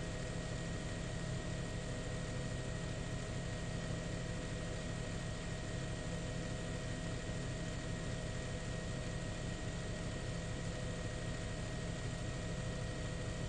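Steady drone of a helicopter's engine and rotors with a constant high whine, with no change in pitch or level.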